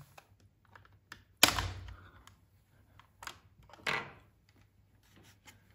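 Plastic clicks and snaps from a Theben wall thermostat's housing being pried off its mounting plate with a small screwdriver. There is one sharp snap about a second and a half in, another about four seconds in, and faint ticks of plastic and tool between them.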